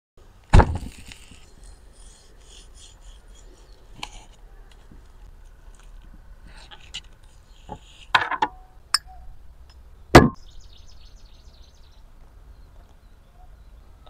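Food and utensils being handled on a wooden table: several sharp knocks, the loudest about half a second in and another about ten seconds in, with light rustling between them.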